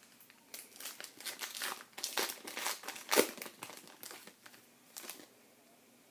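Plastic wrapper of a baseball card pack crinkling as it is handled and opened, in irregular rustling bursts that are loudest about three seconds in and stop about five seconds in.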